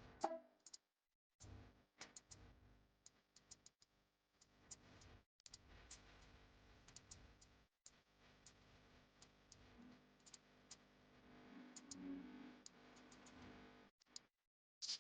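Near silence, broken by scattered faint clicks and a faint low hiss that drops out to dead silence several times.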